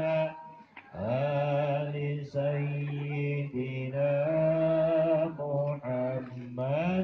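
A man chanting Islamic shalawat (blessings on the Prophet) in long held notes that waver and glide. The chant breaks off briefly about half a second in, then resumes with a rising slide.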